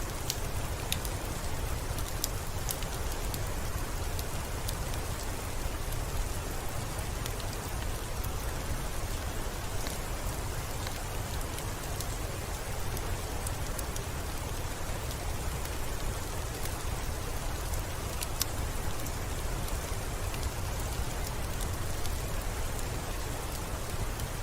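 Steady rainfall, a constant even hiss with a low rumble underneath, scattered with brief sharp ticks.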